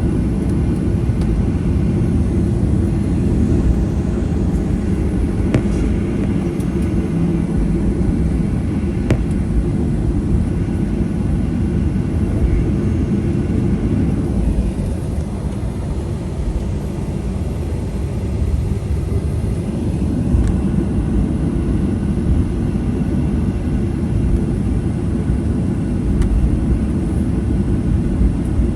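Cabin noise of a Boeing 737-800 taxiing: a steady low rumble from its two CFM56-7B engines and the rolling airframe, with faint thin steady tones above it.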